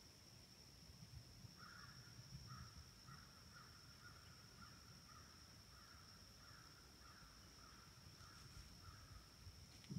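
Faint bird calling in the woods: a run of short repeated calls, about two a second, starting a couple of seconds in and stopping near the end.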